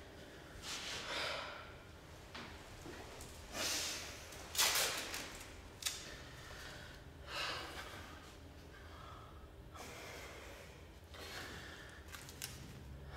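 A boxer breathing out heavily in long, noisy sighs, about five breaths spaced a few seconds apart, with a single sharp click about six seconds in.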